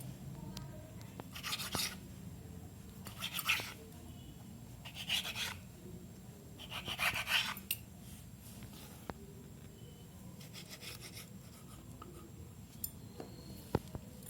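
A knife slicing through a rolled, potato-filled dough log on a board into 2-inch pieces, a short scraping stroke about every two seconds, fainter in the second half.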